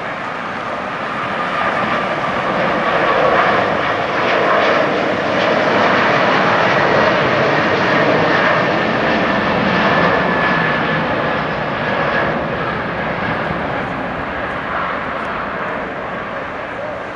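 Boeing 777-200ER's twin Pratt & Whitney PW4000-series turbofans at takeoff thrust: a loud, steady jet roar with a faint whine. It swells over the first couple of seconds, holds, then eases off near the end as the plane moves away.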